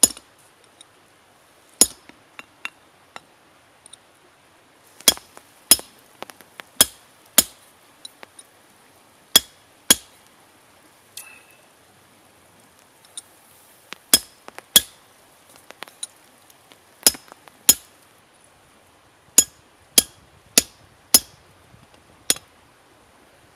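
Hammer blows on a hand punch driven into a red-hot steel bar to punch the holes of a nail header: sharp, ringing metal-on-metal strikes, mostly in pairs about half a second apart. There is a pause of a few seconds in the middle.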